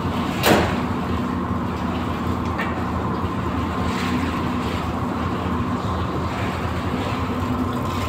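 Steady machinery hum of a mechanical plant room, with a few constant tones running through it. There is one sharp knock about half a second in and a few lighter taps later.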